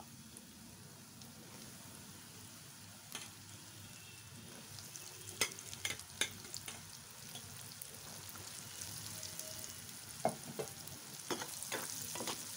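Arrowroot-coated soya chunks deep-frying in hot oil in an iron wok: a steady faint sizzle with scattered sharp pops and clicks, getting louder in the last few seconds.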